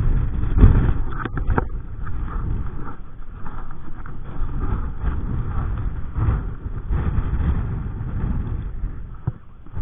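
Strong wind buffeting the microphone in gusts, a loud low rumble that rises and falls, with a few short clicks about a second and a half in.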